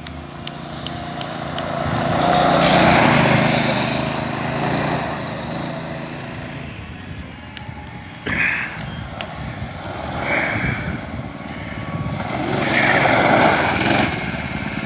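Homemade go-kart's small engine running as the kart drives by on gravel. It gets loudest about three seconds in, fades, then grows loud again near the end as the kart comes back close.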